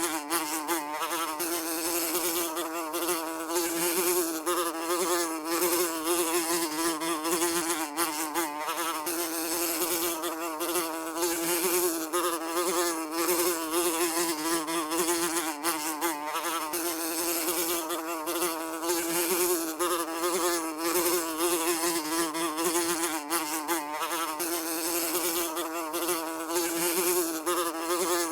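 A housefly buzzing continuously in flight, its wingbeat drone holding a steady pitch with slight wavering.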